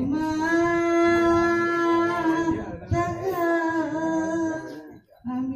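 Singing: a voice holds one long steady note for about two seconds, then a second shorter held note, with a brief break near the end.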